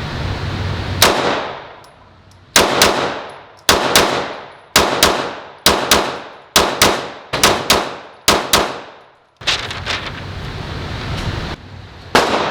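Handgun fired in double taps at an indoor range: one shot, then seven quick pairs of shots about a quarter second apart, each ringing off into echo. A steady rushing noise fills the gaps before and after the string, and one more shot comes near the end.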